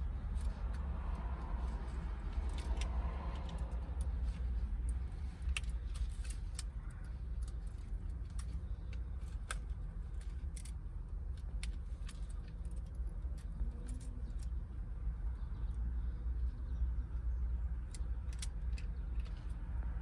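Scattered small clicks and metallic clinks of screws and a screwdriver as new switches are screwed into a car's console, over a steady low hum.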